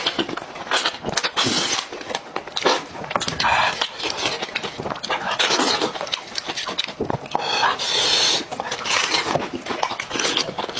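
Close-up eating sounds of a person biting, sucking and chewing meat off goat-head bones: wet, irregular mouth smacks and slurps, with handling of the bones in between.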